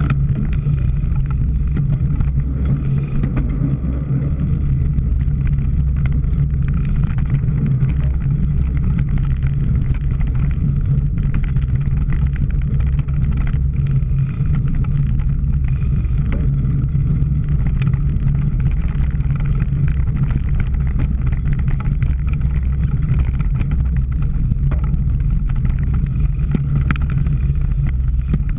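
A steady low rumble of wind and riding noise on a camera microphone as a cyclocross bicycle is raced, with occasional small clicks and rattles.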